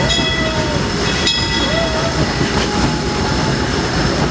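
Steam-train passenger car rolling along the track: a steady rumble of wheels on rails, with brief high-pitched wheel squeals right at the start and again about a second in.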